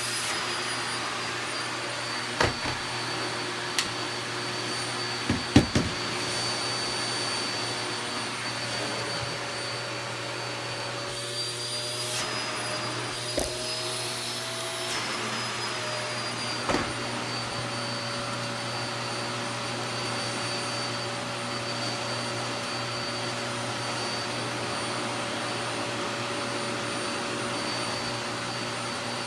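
Vacuum cleaner running steadily with a high motor whine and a hiss of suction. Its pitch rises briefly about halfway through and then settles back. A few short clicks and knocks are heard along the way.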